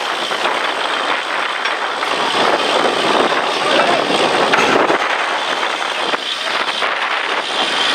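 Truck-mounted borewell drilling rig running: a loud, steady mechanical noise with no clear pitch.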